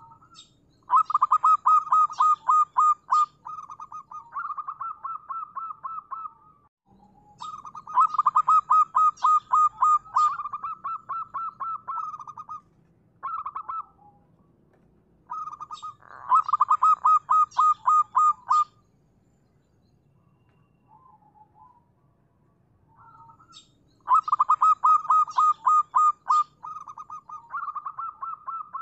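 Zebra dove (perkutut) cooing: rapid trains of short staccato notes, repeated in four bouts of several seconds each with short pauses between them.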